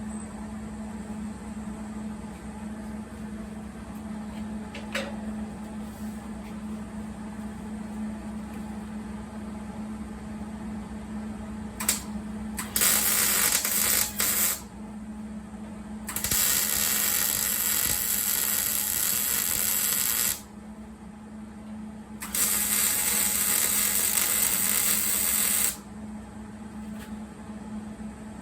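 Arc welding a nut into a truck frame: three welding runs of a few seconds each, a loud harsh hiss that starts and stops sharply, the second the longest. A steady low hum is heard between them.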